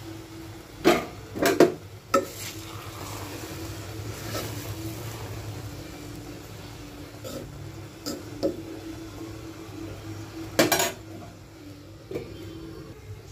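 A metal spatula scraping and clanking against an aluminium pot while stirring vermicelli, in a few separate sharp knocks. The loudest clank comes near the end, as a metal lid goes onto the pot. A steady low hum runs underneath.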